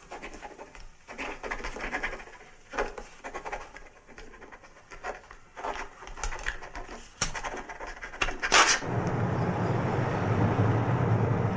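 Pens scratching on paper and papers handled at a desk, with scattered small clicks and a couple of louder sharp sounds. About nine seconds in, a steady low rumble of engine and road noise inside a moving car takes over.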